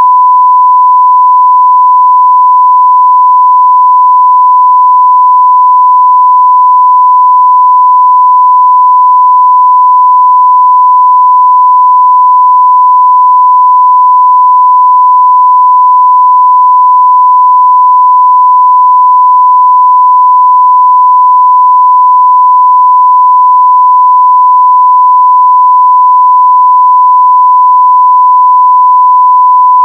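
Censor bleep: one continuous steady sine tone at about 1 kHz, loud and unbroken.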